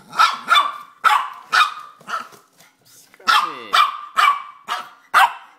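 Small Maltese-Bichon mix dog barking repeatedly: about eleven short, sharp yaps in two quick runs, with a brief pause between them a little over two seconds in.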